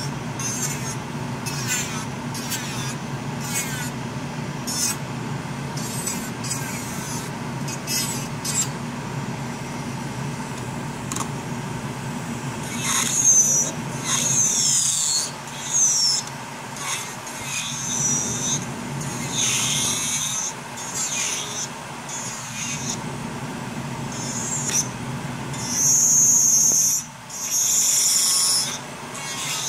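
Nova Flair nail dust collector fan running with a steady low hum. Over it come quick rasping strokes on a fingernail in the first third. From about 13 seconds in, an electric nail drill bit grinds the nail in repeated high-pitched whining bursts, some sliding in pitch.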